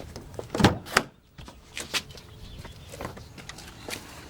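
Clicks and knocks from around the 2008 Hyundai Sonata, two loud knocks under a second in, then lighter clicks spaced about every half second to a second.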